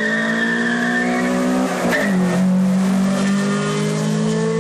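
Cars accelerating hard past at full throttle. The engine note drops with a gear change about two seconds in, then climbs steadily again as they pull away.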